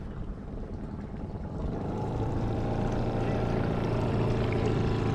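Outboard motor of a canopied swamp tour boat running steadily, growing louder from about two seconds in as the boat comes alongside.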